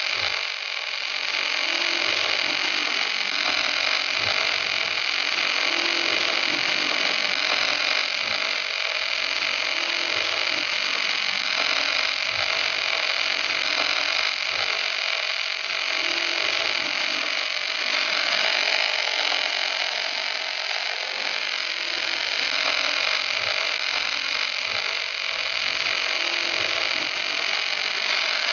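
Gas-shielded wire-feed (MIG) welding arc from an automatic welding carriage, burning continuously along a steel fillet joint as a steady, high-pitched hiss.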